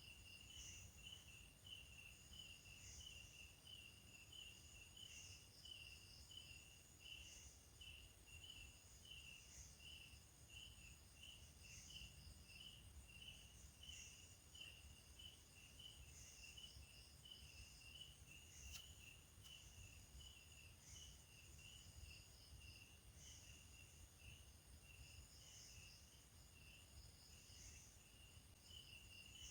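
Faint night chorus of crickets: one chirps steadily at about two chirps a second, while a higher insect call pulses every couple of seconds over a steady thin high whine.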